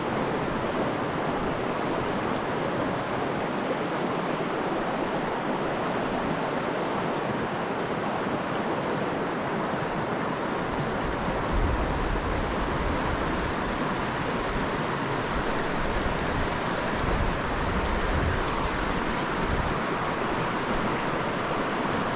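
River water rushing steadily. Uneven low rumbles of wind on the microphone come and go in the second half.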